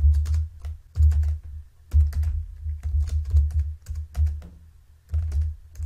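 Typing on a computer keyboard: irregular keystroke clicks, each with a low thud, pausing briefly a little under five seconds in.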